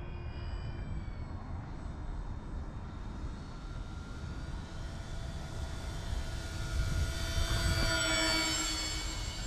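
Twin electric motors and propellers of a large RC flying boat (Avios Grumman HU-16 Albatross) whining in flight. The whine drops in pitch early on as the plane moves away, then grows louder as it makes a low pass and fades again near the end.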